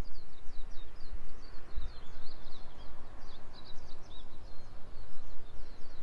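Small birds singing in quick runs of short, high chirping notes, over a low, uneven rumble of wind on the microphone.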